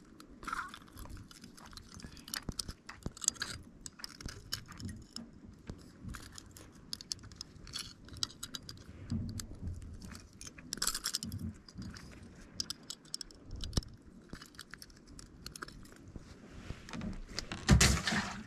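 Steel fishing pliers and a jig's hooks and rings clicking and clinking in small irregular bursts as a hook is worked out of a grouper's mouth. A single heavier knock comes near the end.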